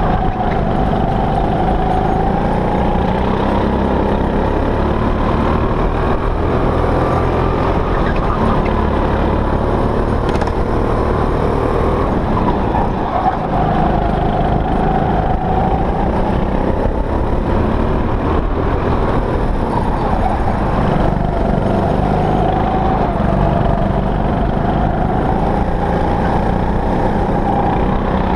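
Go-kart engine heard from onboard at speed, running loudly throughout, its pitch rising and falling several times with the throttle.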